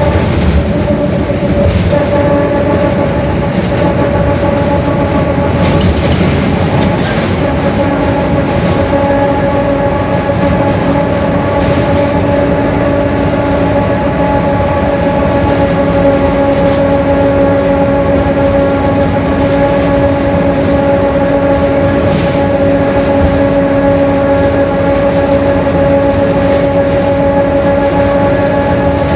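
Mercedes-Benz OF-1721 Bluetec 5 bus under way, its diesel running with a steady whine from the humming differential. A lower second tone joins the whine about a quarter of the way in.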